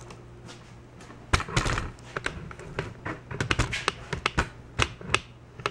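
Irregular clicks and taps, with a short scuffle about one and a half seconds in, of hands and small tools working at a motorcycle's handlebar lever and its cable adjuster.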